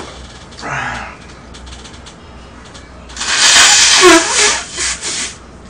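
A man blowing his nose into a tissue: one long, forceful blow of about two seconds starting around three seconds in, with a shorter, softer breathy sound about a second in.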